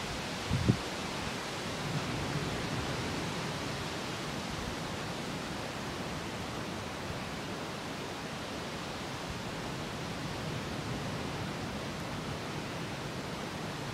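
Steady, even outdoor hiss with no distinct source standing out, and a couple of short low thumps about half a second in.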